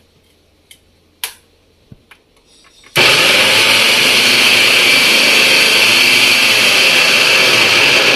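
Preethi Zodiac mixer grinder with its food processor attachment slicing whole onions into rings. A few light knocks come as the onions are dropped into the feed tube, then about three seconds in the motor starts suddenly and runs steadily.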